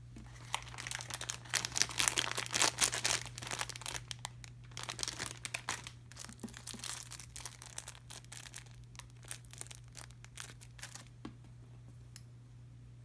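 Crinkling and tearing of a squishy toy's packaging as it is handled and opened, loudest a couple of seconds in and petering out about eleven seconds in.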